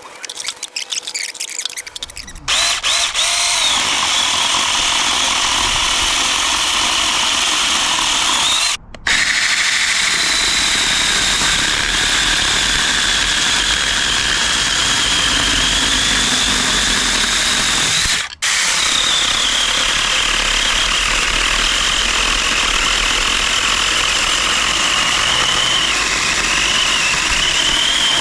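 Saker battery-powered mini chainsaw running: after a few clicks its motor and chain start up with a steady high whine that wavers a little in pitch. It cuts out briefly twice, then runs on.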